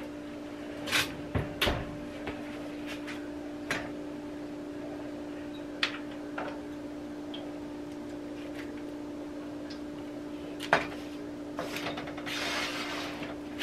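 Metal baking pans being handled on an electric stovetop: a few sharp knocks and clicks as the pans are set down and moved. Near the end comes a rustle of crinkling aluminium foil as a foil-wrapped springform pan is lifted out of its water-bath pan. A steady low hum runs underneath.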